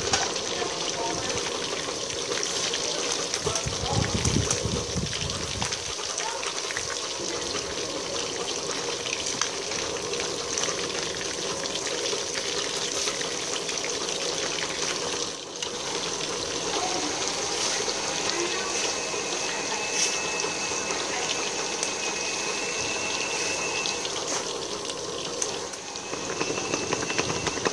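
Fish steaks frying in hot oil in a metal wok: a steady sizzle.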